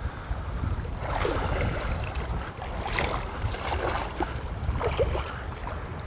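Wind rumbling on the microphone over choppy seawater lapping and sloshing, with a few louder splashes.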